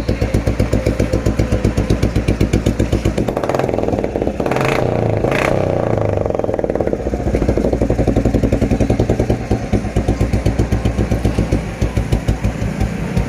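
Royal Enfield Bullet single-cylinder engine, its contact-breaker points freshly set, idling with a slow, even thump. It is revved briefly about four seconds in, then settles back to the even idle.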